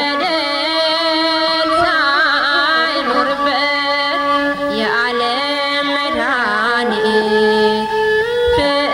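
Music from a slow Amharic devotional song: held chords under a wavering, ornamented melody line.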